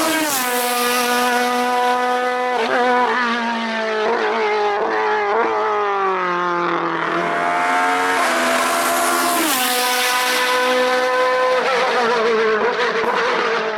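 Race car engine running hard at high revs, its note repeatedly cut short by quick gear changes. About four seconds in, the note falls away as the car slows, then it climbs back up and shifts again.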